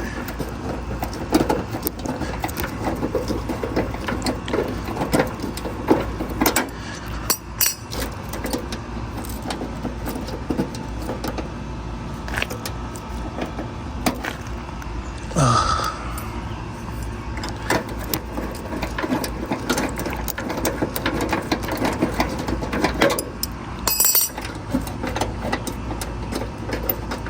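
Irregular metal clicks, clinks and knocks of hand tools working an old bumper bolt loose on a car, over a steady low hum.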